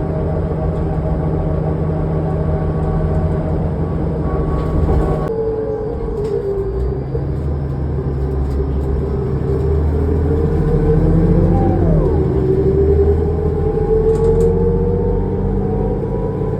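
2005 New Flyer D40LF transit bus's diesel engine and drivetrain, heard from inside the bus. Several tones hold steady, change abruptly about five seconds in, then climb gradually as the bus picks up speed, with a whining, howling quality.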